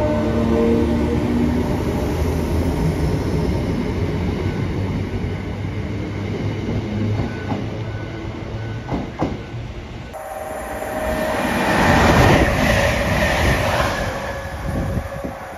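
A Northern Class 319 electric multiple unit running along the platform. A cut about ten seconds in brings a Class 195 diesel multiple unit, whose running noise swells to a peak and then eases off.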